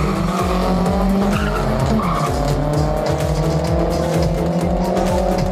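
Two small hatchbacks, a Volkswagen Gol and a Renault Clio, accelerating hard side by side from a drag-race launch, their engines rising slowly in pitch. Background music plays along with them.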